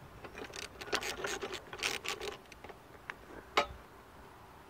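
Hand ratchet clicking in quick runs as it tightens a nylock nut on a bolt through a metal luggage-rack bracket, followed by a few single sharp clicks, the loudest about three and a half seconds in.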